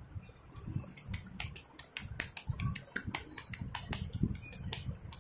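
Dry slate-pencil and clay rotis being handled by hand on a steel plate: irregular sharp clicks and crackles, several a second, over low dull thumps of handling.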